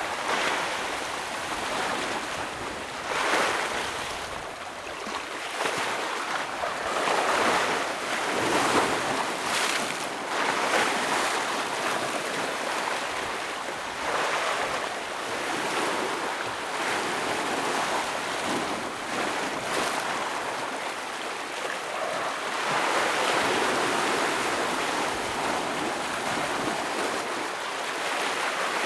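Ocean waves breaking and washing over rocks on a shoreline, a continuous surging hiss that swells and eases every few seconds with no regular rhythm.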